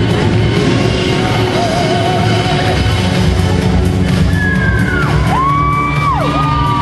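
Routine music for a synchronized swimming team, played loudly over a large hall's sound system. Several high sliding whoops rise and fall over it in the last few seconds.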